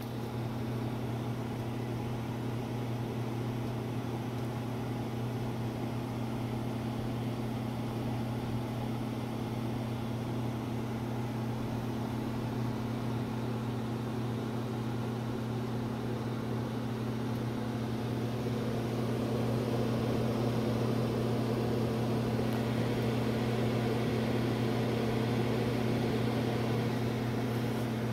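A furnace's small electric motor runs with a steady low hum, getting somewhat louder about two-thirds of the way through.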